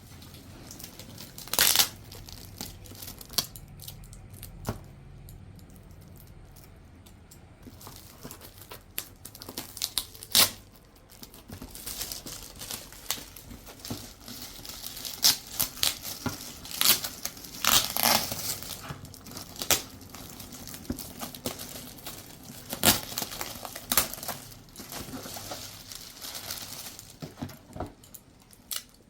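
Gift wrapping being crinkled and torn open by hand, in irregular sharp crackles and rustles that grow busier partway through.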